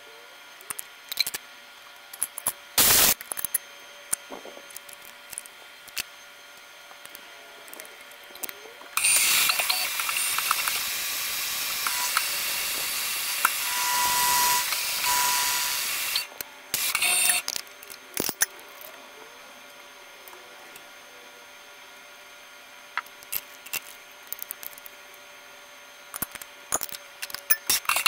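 A long hiss of compressed air from a blow gun, lasting about seven seconds, clearing chips around a milling machine vise, with scattered clicks and clanks of metal tooling being handled before and after.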